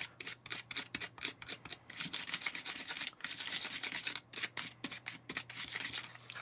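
Small plastic spoon rapidly stirring and scraping a grainy gummy mix of powder and water in a plastic tray: a gritty, crunchy sound made of quick, irregular strokes, several a second, from sugar granules not yet dissolved.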